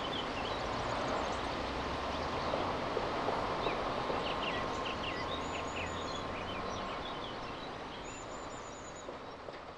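Outdoor ambience of several small birds chirping and trilling over a steady background rush, fading out near the end.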